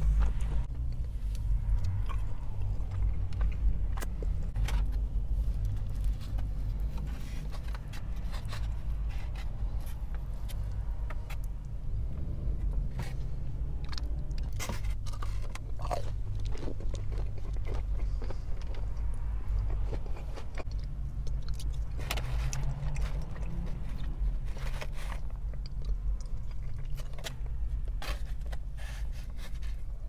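Close-miked chewing and biting of fried rice and chicken, with a plastic fork scraping and tapping in a styrofoam takeout container: many short clicks and crunches over a steady low rumble.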